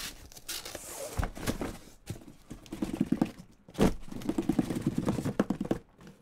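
A corrugated cardboard case being slid up off a stack of shrink-wrapped card boxes: the cardboard scrapes and judders in two runs of rapid chattering, with a sharp thump between them.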